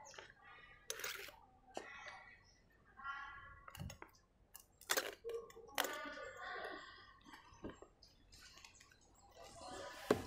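Thin coloured plastic sheets being lifted and laid down on a table, giving faint crinkling with a few light clicks and knocks scattered through.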